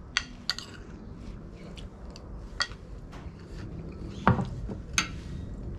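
A metal spoon clinking and tapping against a plate several times in short sharp clicks, with a heavier knock about four seconds in.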